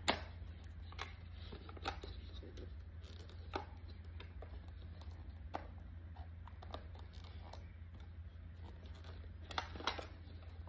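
Scattered light clicks and taps of a plastic bento box being handled and opened, over a steady low hum.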